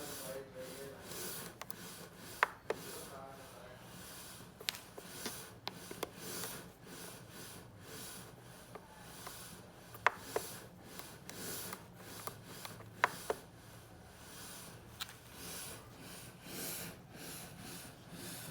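Rubbing and handling noise with about six sharp clicks scattered through it, a few seconds apart, over a faint steady low hum.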